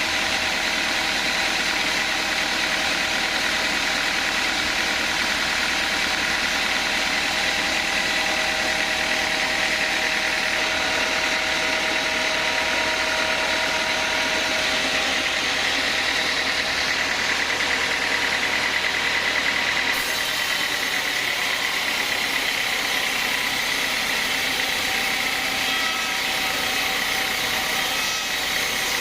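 Sawmill band saw machinery running steadily: a constant engine-like drone with a steady high whine over it.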